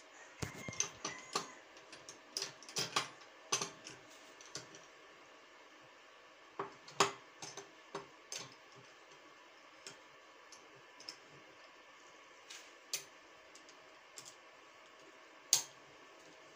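Irregular metallic clicks and taps of a screwdriver working the screws and brackets of a steel sewing-machine stand, with the metal parts knocking together. A quick run of clicks in the first few seconds, then scattered single clicks.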